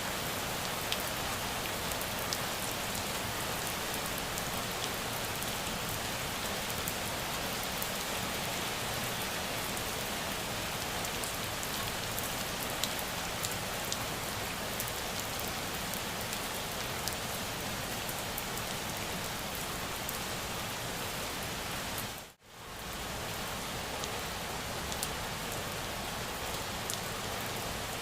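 Steady, dense rain falling on a surface, with individual drops ticking through the hiss. About 22 seconds in it cuts out for a split second, then resumes.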